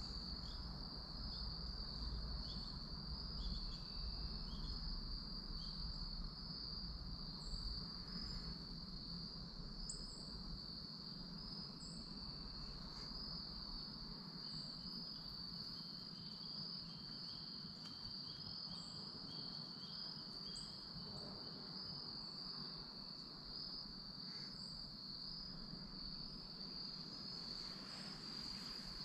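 Steady high-pitched chorus of crickets trilling without a break, with a faint low rumble underneath.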